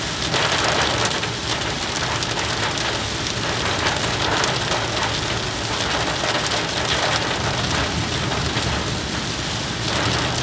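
Heavy rain pelting the windscreen and roof of a Suzuki Alto 800, heard from inside the cabin: a dense, steady hiss of countless drops over a low rumble from the moving car.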